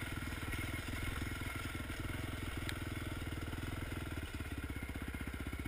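Honda TRX450R quad's single-cylinder four-stroke engine running at low speed, then dropping to an evenly pulsing idle about four seconds in as the quad pulls up.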